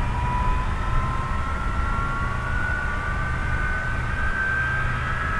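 Airbus A300-600R jet engines whining, the pitch rising slowly and steadily as they spool up, over a constant low rumble.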